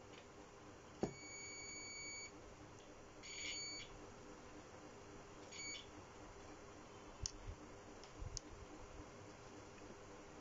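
Continuity buzzer of a digital multimeter beeping as the probes touch points on a phone circuit board. There is a sharp click, then a steady beep of over a second, a shorter crackly beep and a brief chirp. A few faint clicks follow near the end.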